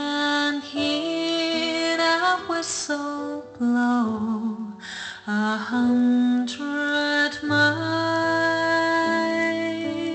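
Recorded music with singing, played back from a CD through a hi-fi amplifier whose input stage has been refitted with MP26B germanium transistors in place of the original silicon ones, and heard through the room's loudspeakers. The vocal line has held, wavering notes.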